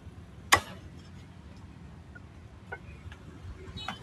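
One sharp, loud knock about half a second in, like a hard blow on a solid surface, followed by a few faint clicks near the end, over a steady low background rumble.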